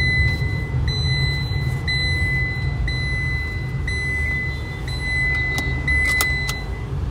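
Car seat-belt warning chime, a high beep repeating about once a second over the car's engine and road rumble inside the cabin. It signals an unfastened seat belt, and it stops near the end.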